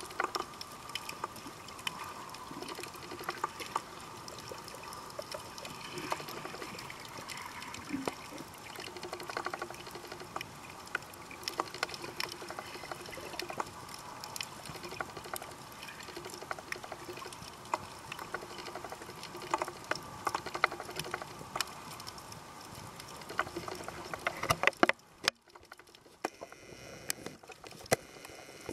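Water sound heard through a camera underwater near the surface: a steady hiss full of small clicks and crackles. It drops away briefly about 25 seconds in, just after one louder click.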